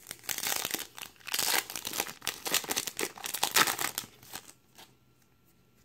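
Foil wrapper of a 2017 Topps Update Series trading-card pack being torn open and crinkled by hand as the cards are pulled out. The crackling is dense and stops about four seconds in, followed by a light click or two.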